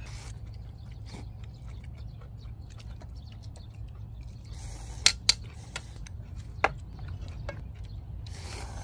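People slurping ramen noodles, with a few sharp clinks of chopsticks and a metal ladle against bowls and the pan about five seconds in, over a steady low rumble.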